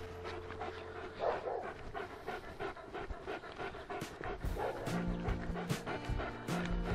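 German Shepherd dog panting while heeling, with short sharp barks about twice a second in the second half, over background music.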